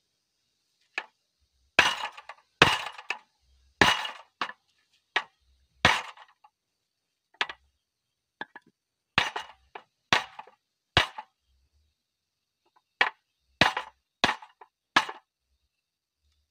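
Repeated hammer blows on the bent steel handlebar frame of a Quick E85 hand tractor, which is being straightened after the tractor overturned. About fifteen sharp, clinking strikes come in irregular groups roughly a second apart, with brief pauses between groups.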